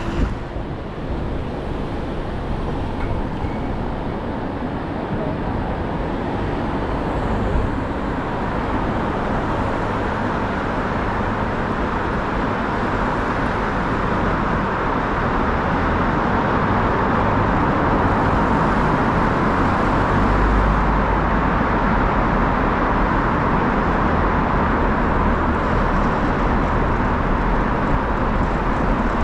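City street traffic noise: a steady wash of vehicles on the road, growing a little louder partway through.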